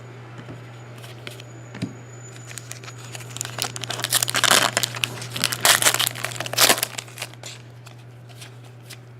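Hockey card pack wrapper being torn open and crinkled by hand, in bursts that are loudest in the middle, over a steady low hum.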